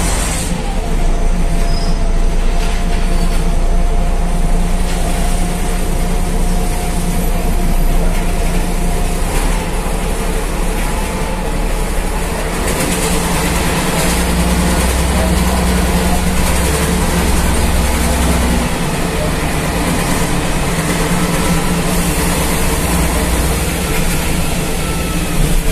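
Ikarbus IK-103 city bus in motion, heard from inside the passenger cabin: a steady engine drone with road noise, and a faint whine that glides slowly in pitch.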